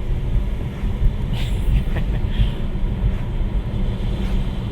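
Steady low road and tyre rumble inside an electric Tesla's cabin, driving on a wet road in rain.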